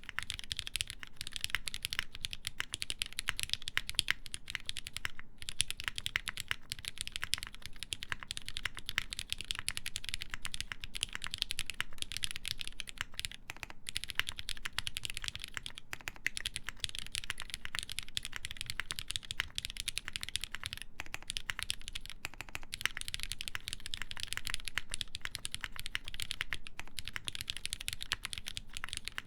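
Continuous fast typing on a Finder Works Hyphen prototype mechanical keyboard with lubed Cherry MX Black linear switches, ABS keycaps and a half-aluminum plate: a dense stream of keystrokes with a few brief pauses.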